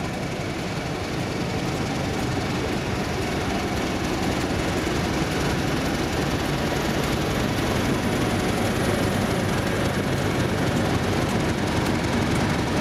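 Class 31 diesel locomotive's English Electric V12 engine running under power as the train approaches, growing steadily louder.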